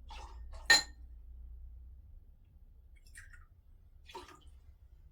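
Bar glassware being handled: one sharp, ringing glass clink a little under a second in, then a few faint knocks and taps.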